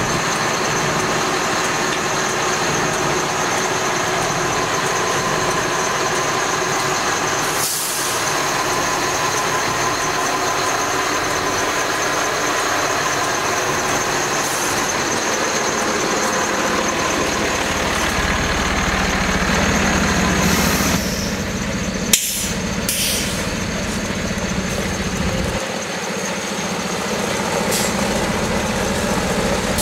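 A 2007 Sterling L7500 water truck's Mercedes-Benz MBE900 diesel engine running steadily, heard from inside the cab at first and from outside as the truck drives later on. There is a brief hiss about eight seconds in and a single sharp click about two-thirds of the way through.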